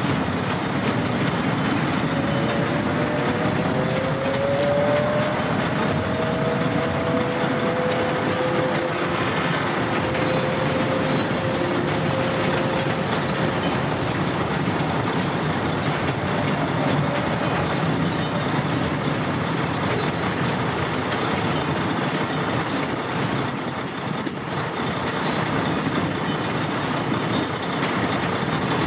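Freight train of empty boxcars rolling past, a steady noise of wheels on rail. From about two seconds in to about fourteen seconds, a thin, drawn-out squealing tone runs over it, drifting slightly up in pitch.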